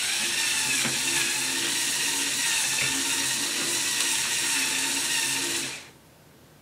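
LEGO Power Functions motors and gears running the banknote counter's feed rollers and conveyor belt, a steady whir that cuts off near the end.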